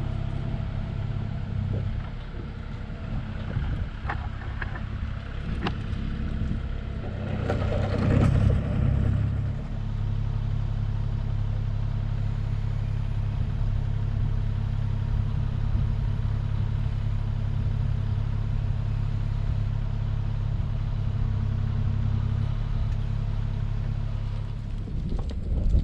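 Kubota KX040 mini excavator's diesel engine running steadily, with a few clicks and a brief louder rush of noise about eight seconds in.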